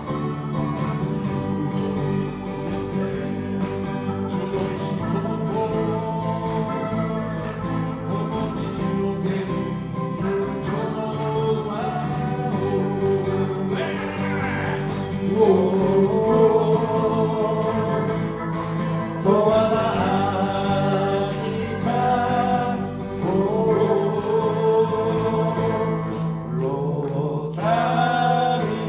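Live band music with two men singing, backed by electric guitar, electric bass, keyboard and acoustic guitar. The sung phrases grow stronger from about halfway through.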